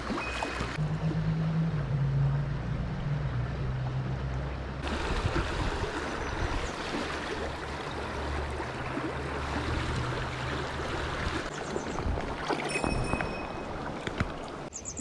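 Mountain stream water rushing steadily, with a low rumble of wind on the microphone. The sound changes abruptly a few times.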